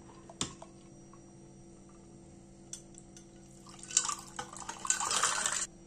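Peach lemonade poured from a glass pitcher into a stemmed drinking glass, splashing for about two seconds from just past the middle, then stopping suddenly. A single light tap about half a second in.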